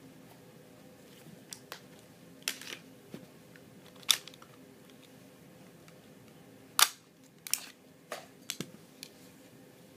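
Handling noise from an HFC HG18C airsoft Glock pistol: scattered sharp clicks and knocks of its plastic and metal parts as it is turned over in the hands, the loudest about seven seconds in.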